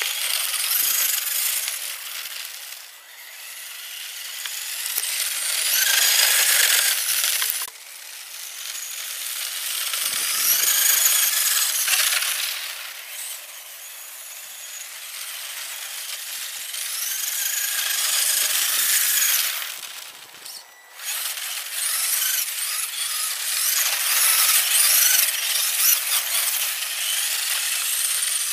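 Traxxas Slash rear-wheel-drive RC truck's brushless electric motor whining at high revs in several long throttle surges, the pitch rising and falling with each one.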